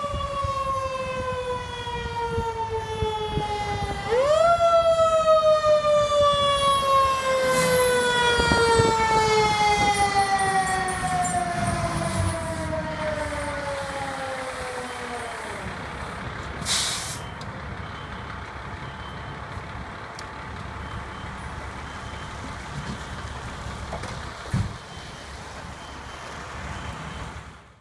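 Fire engine's mechanical siren winding down in pitch, revved up sharply about four seconds in, then coasting slowly down until it dies away about halfway through. A short hiss of air follows, typical of air brakes being set. The truck's engine keeps running after that.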